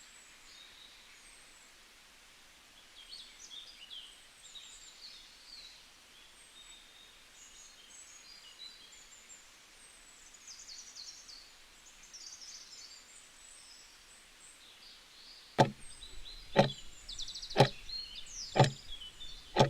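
Forest ambience with birds chirping, then in the last few seconds five sharp knocks, one a second, ticking off the final seconds of the countdown timer.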